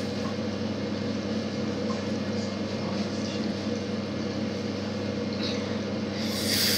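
Bathroom tap left running: a steady stream of water into the sink, with a brief hiss near the end.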